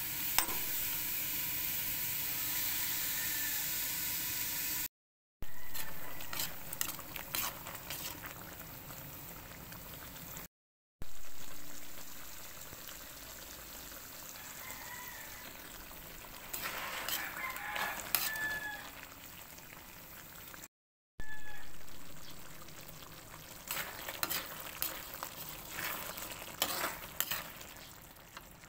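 Pork cooking in coconut milk in a metal wok, with a steady sizzle. A metal spatula stirs it, clicking and scraping against the pan at times.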